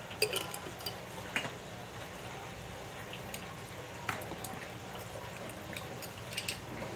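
A few small splashes and drips as a betta fish is tipped from a plastic cup into a basin of water, then occasional single faint drips.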